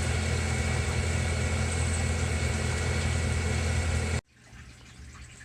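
DIY CNC mill running steadily while machining an aluminium part: a low hum with a steady high whine. It cuts off abruptly about four seconds in, leaving only a faint background.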